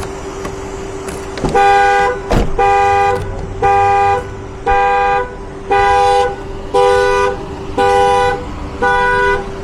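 Car alarm going off: the car's two-note horn sounds in regular blasts about once a second, eight times, starting about one and a half seconds in.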